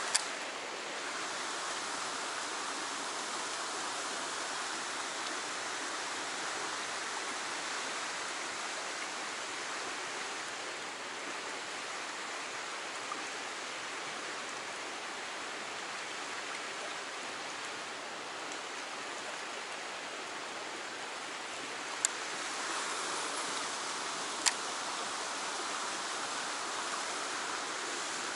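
Fast-flowing stream water rushing steadily, with two sharp clicks about two and a half seconds apart near the end.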